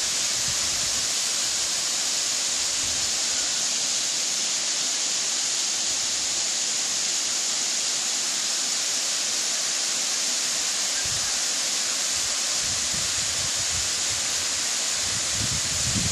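A tall, narrow waterfall pouring down a rock face into a pool: a steady, even rush of falling water with a bright hiss.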